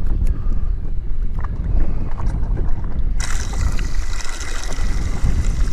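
Wind buffeting the microphone on an anchored jet ski, a heavy uneven rumble. About three seconds in, a steady hiss starts abruptly and carries on.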